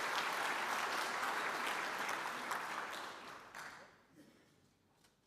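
Audience applauding, a dense patter of many hands that fades away about three to four seconds in.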